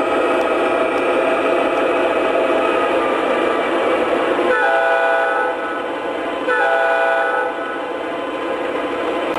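MTH O-scale BNSF ES44DC model locomotive's onboard sound system playing a diesel engine rumble, broken twice by a horn. Each horn blast is a chord of several tones lasting about a second, starting about halfway through, and the engine sound carries on after.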